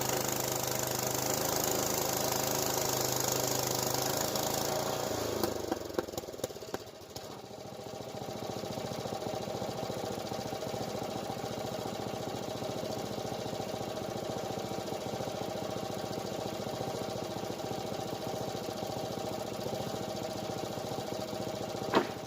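A milling saw's small gas engine running steadily, then dropping to a lower, quieter run about six seconds in, with a few clicks as it changes. There is a single sharp knock near the end.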